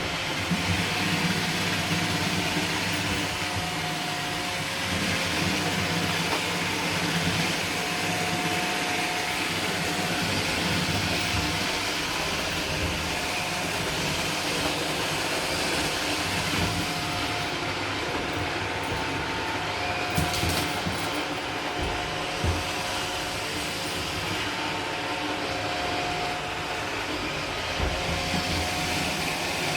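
Roomba robot vacuum running: a steady whirring of its suction fan and brushes, with a faint wavering hum, and a few short knocks in the second half.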